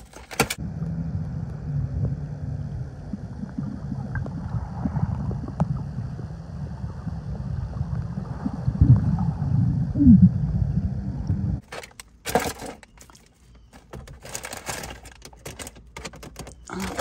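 Muffled underwater rumble and gurgling, recorded by a phone sealed in a waterproof pouch while swimming, with a few louder swells near the middle. It cuts off abruptly after about eleven seconds to quieter rustling and scattered clicks of the pouch being handled.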